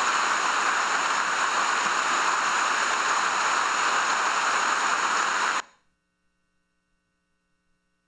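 Rain falling on dense rainforest foliage: a steady hiss that cuts off suddenly about five and a half seconds in.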